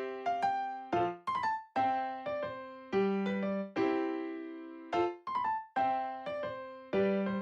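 Background music: a piano melody with struck notes that ring and fade, played at an even, bouncy pace.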